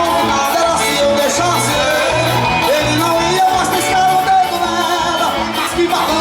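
Music with a singer over a band, with a steady beat and bass line.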